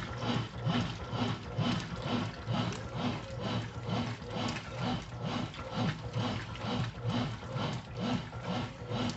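Brastemp Intelligent 7 kg washing machine agitating its wash load: the motor drives a back-and-forth stroke about twice a second, each stroke a low mechanical growl with water and clothes swishing.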